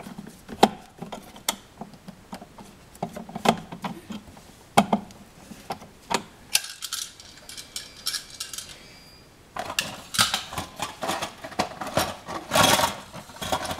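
Flat-head screwdriver turning a light switch's metal mounting screw into the electrical box: irregular sharp clicks and ticks, which grow denser and scrape more in the last few seconds.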